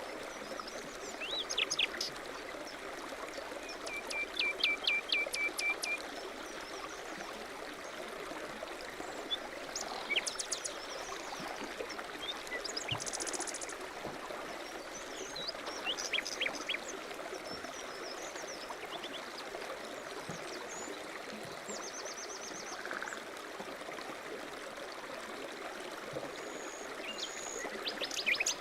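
Running water from a stream flowing steadily, with small birds chirping and trilling over it: a run of quick repeated chirps about four seconds in, and short high trills around the middle and later.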